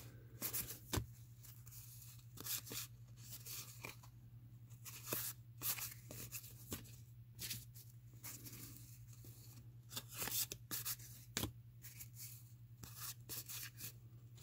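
1987 Fleer cardboard baseball cards being slid off the stack and shuffled between the hands, giving irregular short papery swishes and clicks. A faint low hum runs underneath.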